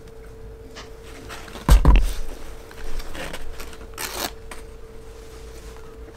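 A plastic drink bottle set down on a wooden table with a thump about two seconds in, then the paper wrapper of a hamburger rustling and crinkling as it is handled, twice. A steady low hum runs underneath.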